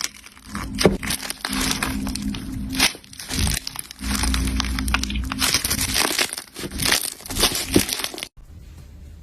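Slime being squeezed and poked by hand, giving dense, irregular crackling and popping, with some sharper snaps. The crackling stops abruptly about a second before the end.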